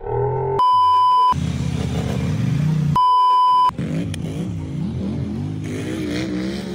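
Two long censor bleeps, each a steady high beep of under a second, one near the start and one about three seconds in. Between and after them a motor vehicle engine runs, its pitch rising and wavering as it revs.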